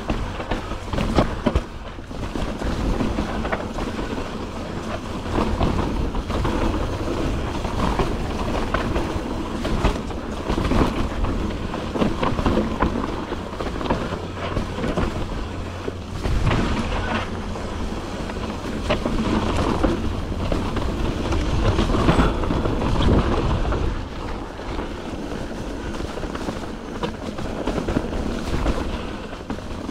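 YT Jeffsy full-suspension mountain bike riding down a rocky dirt trail: tyres rumbling on the dirt, with the bike rattling and knocking steadily over rocks and ruts.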